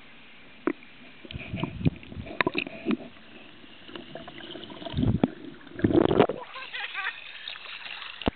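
Water splashing and sloshing, with irregular knocks and splashes; the loudest come about five and six seconds in.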